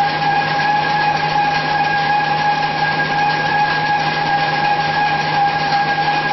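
N-fold hand towel paper converting machine running at a steady speed: continuous machine noise with a constant high whine over it.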